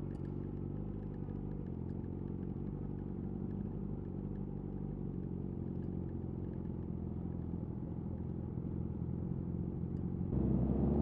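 Yamaha YZF R6's inline-four engine through a de-catted Akrapovic slip-on exhaust, running at low, steady revs; about ten seconds in the throttle opens and the exhaust suddenly gets louder.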